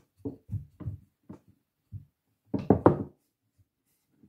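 Wooden rolling pin rolling and knocking on a wooden board while scone dough is rolled out: a string of dull knocks, with a louder cluster of knocks about two and a half seconds in.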